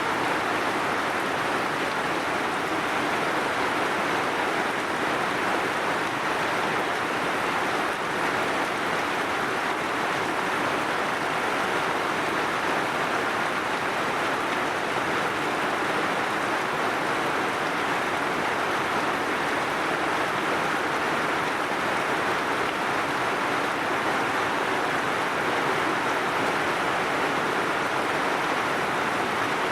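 Heavy rain falling steadily, a dense even hiss with no separate drops or breaks.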